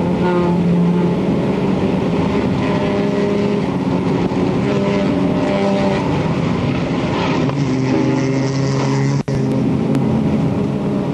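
Isuzu Stylus race car's four-cylinder engine running steadily, heard from inside the car over wind and road noise. The engine note drops to a lower steady pitch about seven and a half seconds in, and the sound cuts out for an instant a little after nine seconds.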